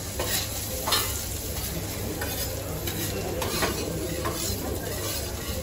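Metal spatula scraping and tapping on a stainless flat-top griddle, a stroke about once a second, over the sizzle of diced vegetables frying for an omelette.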